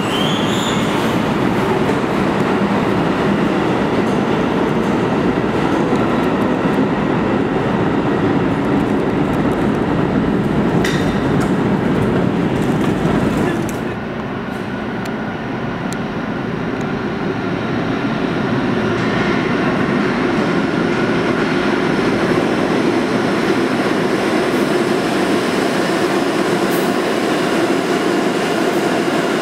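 Budd-built R32 subway train running through an underground station, a steady rumble of steel wheels on rail. About halfway the sound drops, then a second subway train is heard approaching on a far track, growing louder over several seconds.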